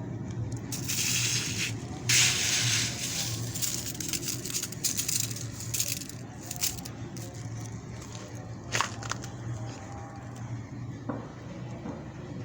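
Hailstones striking, a dense run of many small ticks and hits, heaviest in the first three seconds and thinning to scattered ticks after. A steady low hum runs underneath.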